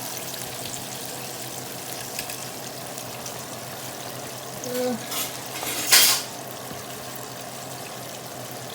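Hot oil sizzling steadily as chicken deep-fries, with a brief louder burst of noise about six seconds in.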